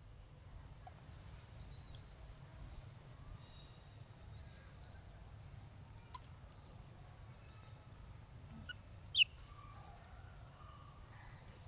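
Faint outdoor ambience: a steady low rumble with faint, short, high bird chirps repeating about once a second. About nine seconds in comes one short, loud, high-pitched call that drops in pitch.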